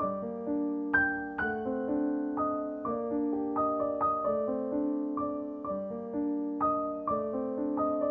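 Gentle background piano music: a slow, calm melody of single struck notes, a new note about every half second, each one ringing and fading.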